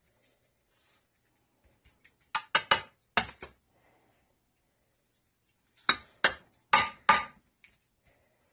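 Metal serving spoon knocking sharply against cookware while noodles are scooped and dropped into a glass baking dish: a run of about four knocks a little over two seconds in, and another run of about four near six seconds in.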